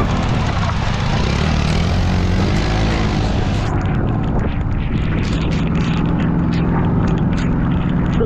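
Motorcycle and farm tractor engines running steadily in a continuous low drone. Scattered short crackles join in during the second half.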